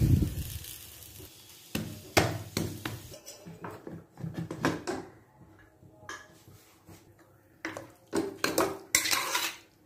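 Clinks, knocks and scrapes of metal utensils against cooking pots. Near the end, a ladle scrapes several times against the inside of a pressure cooker pot as it stirs the cooked curry.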